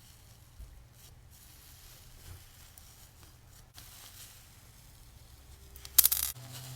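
Slime being handled, soft faint squishing and rubbing, with one short, loud crackling squish about six seconds in.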